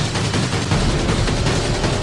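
Loud music with heavy drums and rapid percussive hits.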